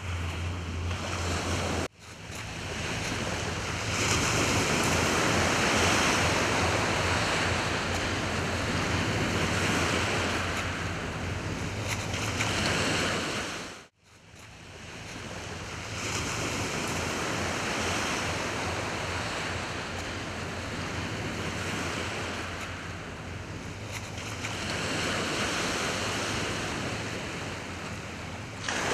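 Surf washing onto a shingle beach, swelling and fading in slow waves, with wind buffeting the microphone. The sound cuts out briefly twice, about two seconds in and about halfway through.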